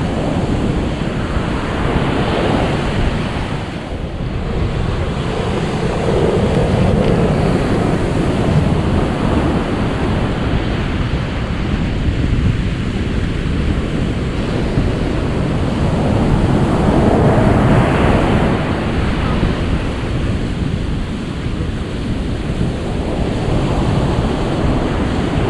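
Ocean surf: waves washing in, the rush swelling and easing every few seconds.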